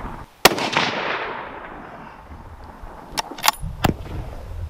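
A single .300 Win Mag shot from a Thompson Center Compass bolt-action rifle cracks about half a second in, its echo rolling away over the next second or so. About three seconds later come three short, sharp clicks or knocks.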